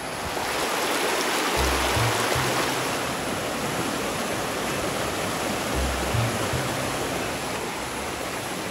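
Shallow rocky stream rushing and splashing over stones, a dense steady rush that grows louder about half a second in. Background music sits under it, its low bass notes coming in twice.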